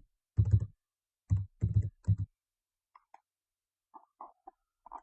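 Quick series of sharp clicks and knocks in two clusters in the first half, then a few faint ticks near the end.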